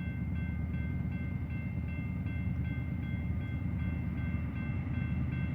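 Approaching freight train rumbling low and steady, with a grade-crossing signal bell ringing in a steady repeating beat.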